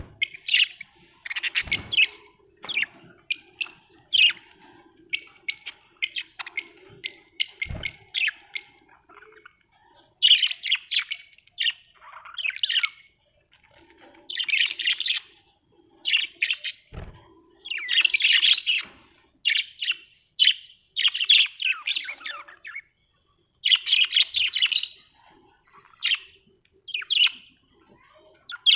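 Budgerigars chirping and warbling in quick, busy bursts of high chirps, with a few short low thumps about 2, 8 and 17 seconds in.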